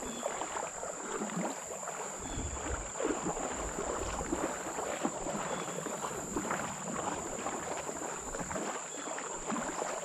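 Shallow river water sloshing and splashing close to the microphone in many small irregular crackles, with a steady high-pitched whine throughout.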